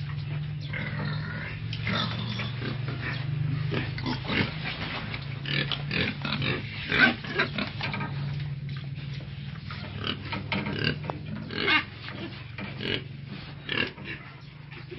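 Pigs crowded in a pen, calling in many short, irregular grunts and squeals over a steady low hum.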